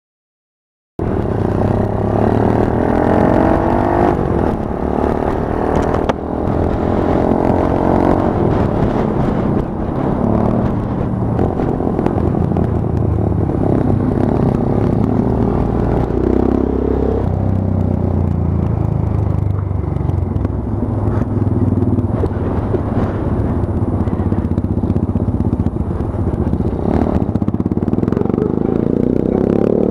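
Monkey bike engine running while being ridden, its pitch rising and falling again and again as the rider speeds up and eases off. The sound cuts in suddenly about a second in.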